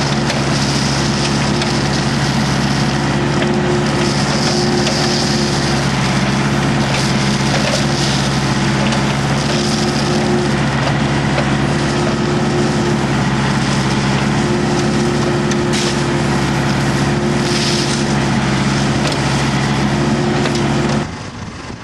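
Heavy diesel machinery running at a steady engine speed, with the crunching and scraping of dirt or gravel being worked rising and falling every few seconds. It cuts off sharply near the end.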